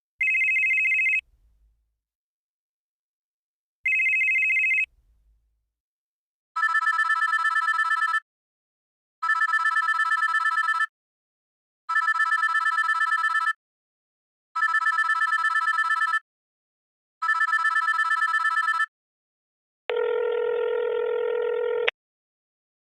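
Telephone ringers sounding one after another: two short, one-second electronic ring tones, then five trilling rings of about a second and a half each at an even pace. Near the end comes a steadier, lower tone lasting about two seconds.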